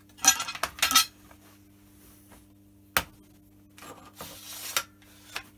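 Metal clinks and knocks as the Myford countershaft pulley assembly is handled and clamped in a vise: a quick cluster of clinks in the first second, a single sharp click about three seconds in and another near the end, with a short rubbing rustle a little before that.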